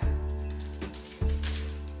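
Background music: held chords over a deep bass note, with a new chord struck about a second in.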